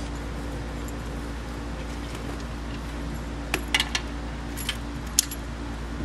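Light metallic clinks and jingles, like a key ring, a small cluster about three and a half seconds in and a sharp single clink near five seconds, over a steady low mechanical hum. The pit bike's engine is not running.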